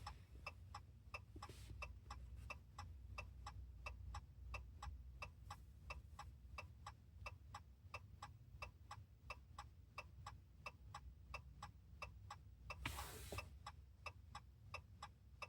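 Faint, steady ticking of a pickup's hazard-light flasher, about three ticks a second.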